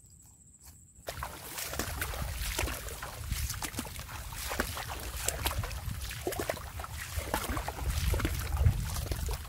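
Water splashing and sloshing in a shallow flooded rice field, with a low rumble of wind on the microphone. It starts abruptly about a second in, after a near-silent first second.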